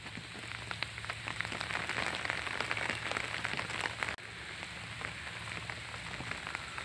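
Heavy rain falling on the leaves of climbing roses: a steady hiss with many separate drops ticking close by. It is louder in the middle and drops off suddenly about four seconds in.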